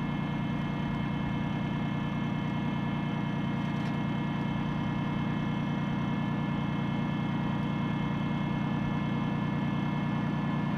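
A vehicle engine idling steadily at an even pitch.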